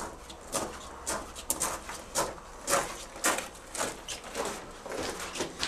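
Footsteps crunching on gravel at a steady walking pace, about two steps a second.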